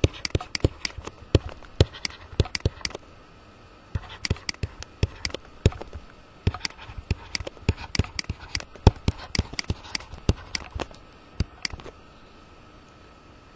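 A pen stylus tapping and clicking on a tablet screen as it writes: dozens of sharp, irregular clicks. The clicks pause briefly about three seconds in and stop about a second and a half before the end.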